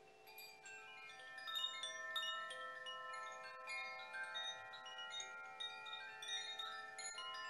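Tuned chimes ringing: many bright, overlapping tones struck lightly in quick, irregular succession, each ringing on under the next.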